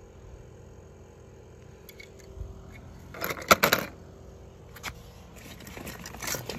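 Die-cast toy cars clattering and clinking against a hard surface: a quick burst of clicks about three seconds in, a single click a little later, and more scattered clinks near the end.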